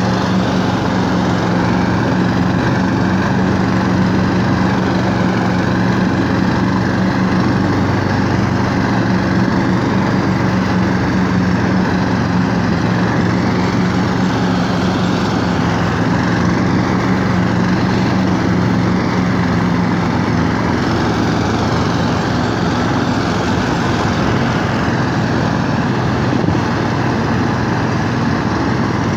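Small petrol engine of a DraXter motorized snow tow running steadily as it pulls a sled through snow, its note shifting slightly about two-thirds of the way through.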